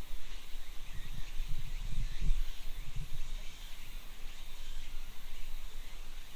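Outdoor ambience of birds and insects calling in the surrounding trees as a steady high haze, with a few low, soft thuds of footsteps between about one and three seconds in.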